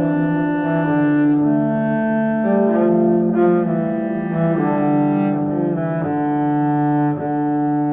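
Slow instrumental music: long held low notes, string-like, each moving to a new pitch every second or so.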